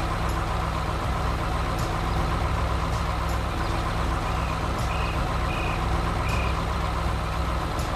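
Heavy farm machine's diesel engine running steadily. Three short high beeps come a little past the middle.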